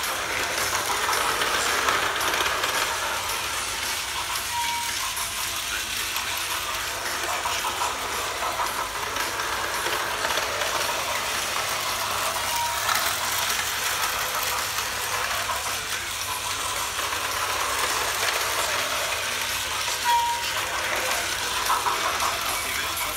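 Battery-powered Plarail toy trains running on plastic track: a steady whirring, rattling motor-and-wheel noise. Three brief high beeps come about every eight seconds.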